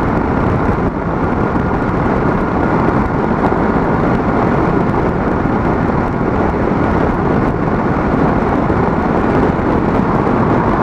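Steady, loud rush of wind and road noise from a Kawasaki Vulcan S motorcycle cruising at about 70 mph behind its windshield, with wind buffeting the helmet and microphone.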